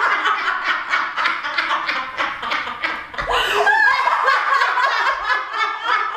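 Two women laughing hard together in a fast, unbroken run of breathy laughs.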